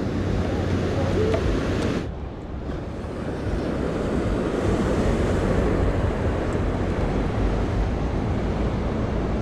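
Ocean surf breaking and washing below a pier, a steady rushing noise, with wind buffeting the microphone. The sound drops away suddenly for a moment about two seconds in, then returns.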